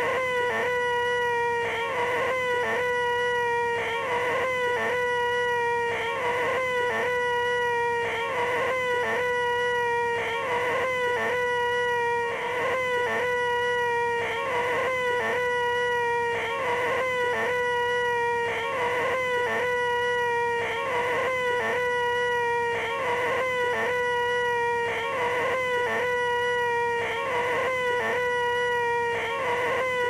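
A man's nasal, high-pitched 'eeeeeh' screech held on one steady pitch, the 'most annoying sound in the world', looped over and over with brief breaks between repeats.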